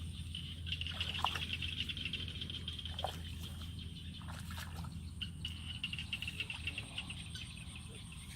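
Outdoor natural ambience: a steady, rapidly pulsing high buzz with a few short bird chirps and a low hum underneath.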